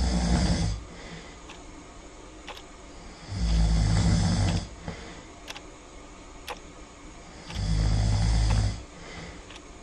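Loud snoring in slow, even breaths: one snore trailing off at the start, then two more, each lasting about a second, about four seconds apart.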